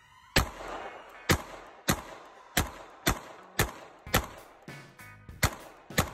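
A semi-automatic pistol firing a steady string of about ten shots, roughly two a second, each a sharp crack.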